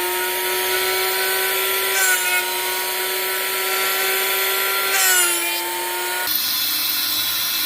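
Drill Doctor drill-bit sharpener's electric motor running with a steady whine while a bit is ground, the pitch sagging slightly twice under load. About six seconds in the sound changes to a weaker whine with more hiss.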